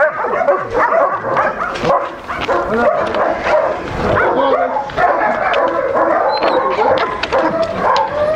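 Several dogs barking and yelping over one another without a break.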